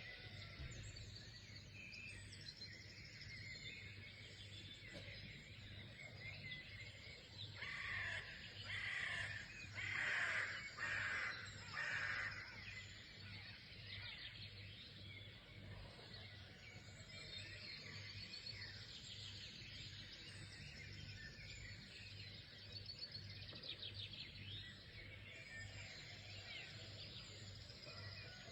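Wild birds chirping and singing in a continuous chorus, with a nearer bird giving a run of louder calls about eight to twelve seconds in.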